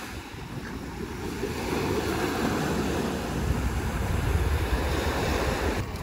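Small waves breaking and washing onto a sandy beach, with wind buffeting the microphone in low rumbles that grow stronger about two seconds in. The surf sound stops abruptly near the end.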